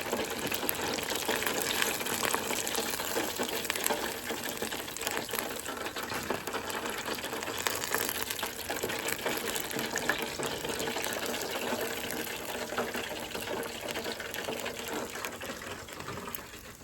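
Chicken pieces deep-frying in hot oil: a steady, dense crackling sizzle that eases a little near the end.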